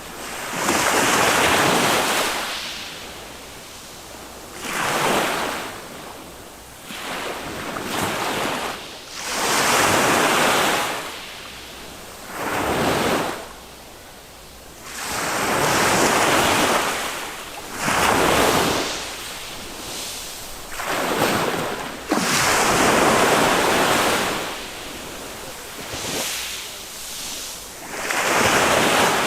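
Small waves of a calm Mediterranean sea breaking on a sandy beach, one after another. Each comes as a rush of surf that swells and dies away, about every two to four seconds.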